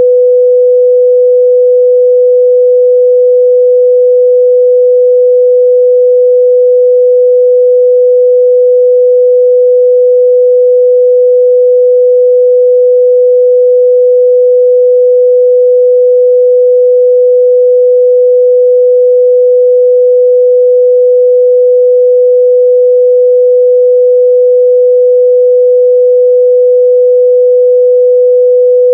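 A continuous 497 Hz sine-wave test tone, one steady pure pitch at constant loudness, used to check the midrange response of speakers and headphones.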